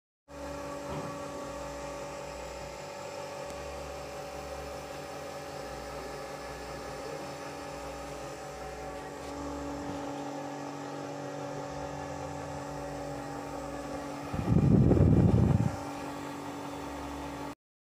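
Steady mechanical hum with several held tones and a low pulsing underneath. Near the end a louder, low rumble lasts about a second.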